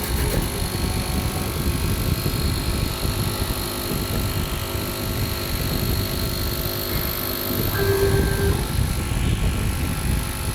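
STYLECNC STS1325H stone CNC machine running: a steady mechanical rumble with a thin high whine, and a short added tone about eight seconds in.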